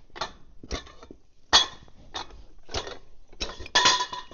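Steel parts of a bulldozer's track tensioner clinking and clanking as the assembly is taken apart. There are about seven irregular metal knocks, each with a short ring, and the loudest come near the end.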